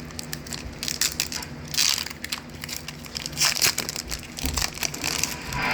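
Foil Pokémon booster pack wrapper crinkling as it is handled and ripped open, with irregular crackles and a couple of louder bursts.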